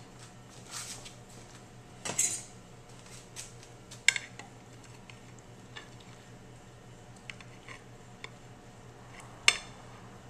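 Metal serving utensils clinking and scraping against a glass baking dish as a bacon-wrapped meatloaf is cut and lifted out. The knocks come scattered and irregular, and the sharpest is near the end.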